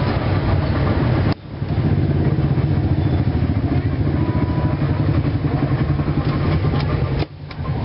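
A small engine idling steadily close by, a dense low rumble with a rapid pulse. It cuts out abruptly for a moment twice, about a second in and near the end.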